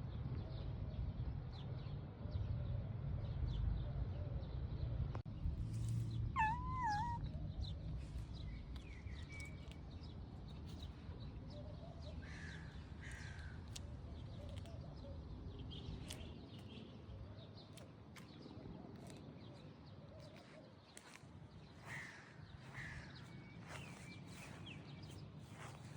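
Animal calls: a wavering pitched cry about six seconds in, then short harsh calls, mostly in pairs, over a low rumble that dies away after the first few seconds.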